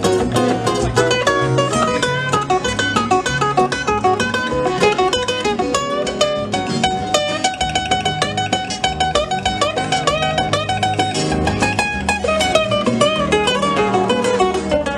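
Live acoustic guitar instrumental break in a blues tune: quick picked single-note runs over bass notes, with no singing.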